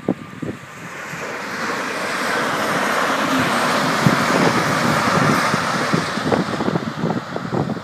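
A First Hull Trains Class 180 Adelante diesel multiple unit passing at speed. Its rushing noise swells from about a second in, holds loud through the middle, and eases off near the end.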